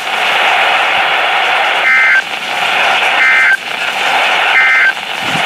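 Weather radio receiver hissing with static, broken by three short bursts of warbling digital data tones about a second and a half apart: the SAME end-of-message code that closes a NOAA Weather Radio severe thunderstorm warning.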